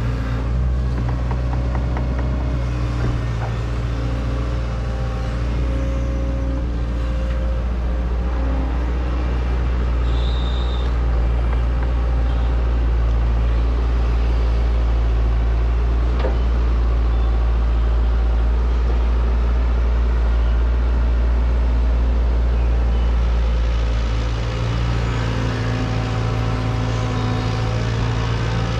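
An excavator's diesel engine runs steadily, with a low drone and steady higher tones that come and go. The engine eases off briefly about 24 seconds in.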